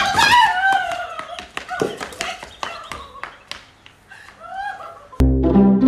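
A quick run of sharp taps, several a second, follows a short call that glides in pitch. About five seconds in, music starts abruptly.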